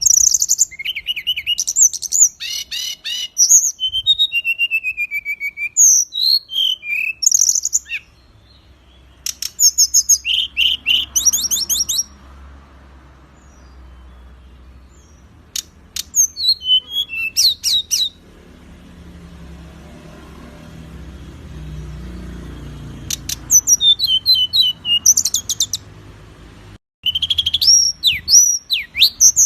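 Songbirds singing in fast bursts of varied chirps, trills and whistled glides, with a few pauses where only a faint low background rumble remains.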